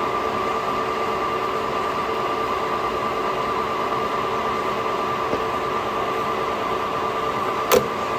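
Washino LR-55A engine lathe running, a steady hum and gear whine of several even tones over a hiss. A single sharp click near the end.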